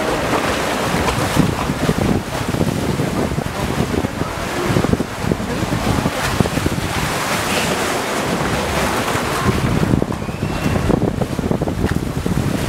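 Rushing, churning water in a log flume ride's trough as the log boat floats along, with wind buffeting the microphone.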